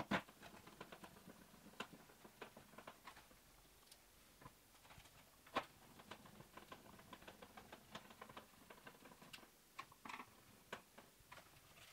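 Faint, irregular small clicks and ticks of a Phillips screwdriver driving the wing-mounting screws into a model plane's fuselage, with handling of the airframe. There is a sharper click at the start and another about halfway.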